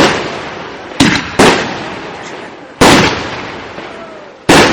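Aerial firework shells bursting in the sky: four loud bangs, two close together about a second in, one near three seconds and one near the end, each fading away over a second or more.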